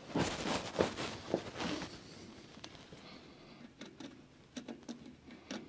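Handling noises: a plywood cover panel scraping and rubbing as it is shifted against the bandsaw's cast-iron frame, then a few light clicks and taps.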